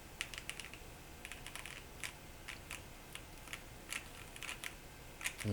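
Keys being pressed on an Akko M3W aluminum mechanical keyboard during a key test: faint, irregular key clicks, a few a second and sometimes in quick clusters.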